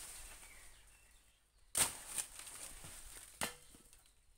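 Two sharp chops about a second and a half apart as the stalk of a banana bunch is cut through, with faint rustling at first.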